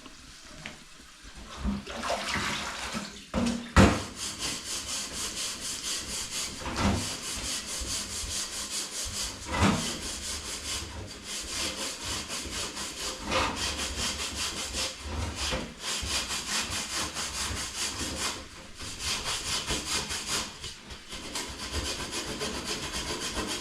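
Quick, steady scraping or rubbing strokes, kept up on and on, with a sharp knock about four seconds in and another near ten seconds.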